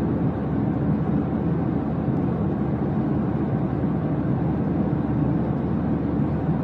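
Steady low rumbling drone, even throughout, with no distinct tones or separate events.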